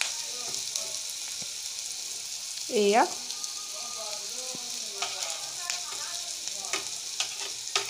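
Chopped onions and whole spices sizzling steadily in oil in a wok over a low gas flame as a spoonful of ginger-garlic paste goes in. A few light clicks of the spoon and spatula against the pan come in the second half.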